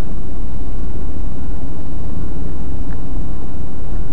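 Steady low rumble of engine and road noise inside a moving car, as picked up by the dashcam's microphone, with a faint click about three seconds in.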